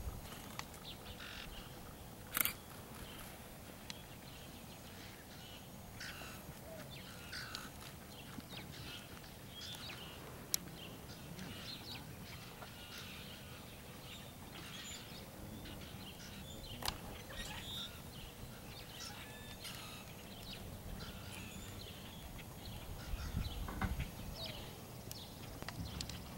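Birds chirping and calling on and off, with a few sharp clicks. Near the end the hoofbeats of a horse trotting on arena sand come up as it draws near.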